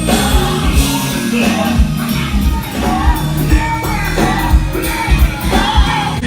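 Loud music with a singing voice over a heavy bass beat.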